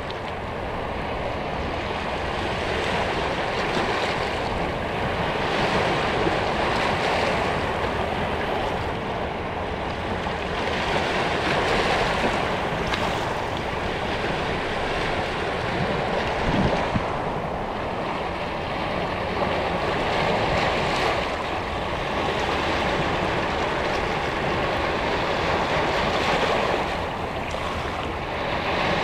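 Small sea waves lapping and washing over rocks at the water's edge, close up, the surf swelling and ebbing every few seconds, with one sharper splash a little past the middle.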